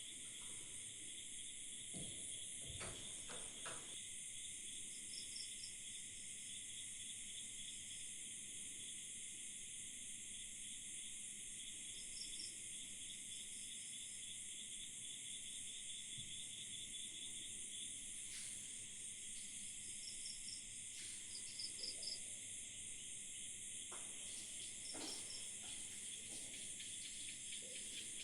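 Night chorus of crickets and other insects, a steady high trilling in two layers, with short chirps from another caller now and then and a few faint knocks.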